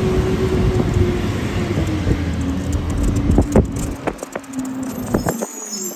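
Garbage truck engine running at a steady raised pitch over a heavy low rumble. Sharp cracks and knocks come in from about halfway, and the low rumble cuts off suddenly near the end.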